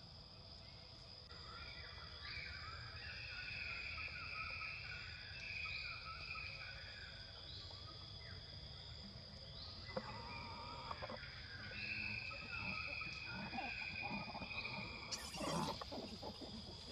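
Forest ambience: insects keep up a steady high-pitched drone, with a short rising chirp every couple of seconds and warbling calls that come and go over it. About fifteen seconds in there is a brief, sharper burst of noise.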